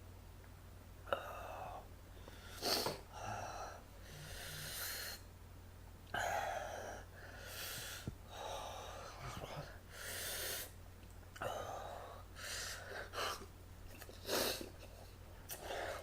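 A man breathing hard in and out through his mouth, with about a dozen heavy breaths and a few sharper sniffs or gasps, from the burn of superhot Jigsaw chillies.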